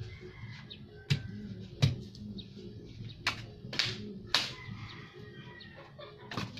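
Dry branches being chopped with a machete: about six separate sharp chops, a couple of them with a short splintering crack, spread unevenly over several seconds.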